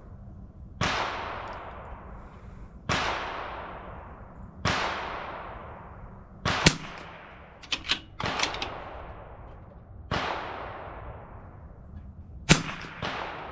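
CZ 457 .22 rimfire rifle firing five quick shots about two seconds apart, each sharp crack trailing off in an echo. Shorter sharp clicks come between the later shots.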